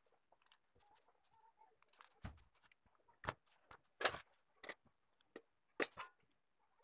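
Faint, scattered clicks and rustles of hands handling and twisting thin hook-up wire ends over a circuit board, the loudest clicks about four and six seconds in.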